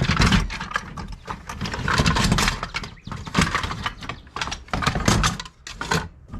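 Metal toy tractors being handled and rummaged in a tote: repeated irregular clattering and knocking of hard objects.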